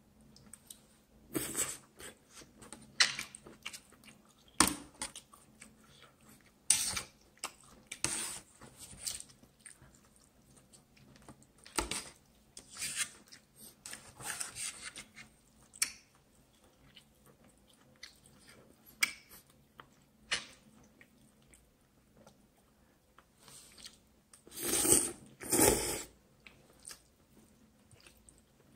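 A person eating Korean instant noodles close to the microphone: chewing and eating noises come in irregular short bursts, with two longer, louder bursts near the end.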